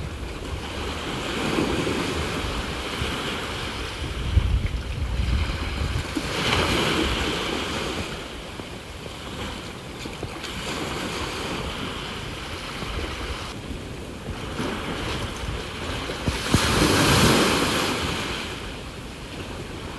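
Sea waves washing onto the shore, coming in several surges that rise and fade, the loudest about three-quarters of the way through.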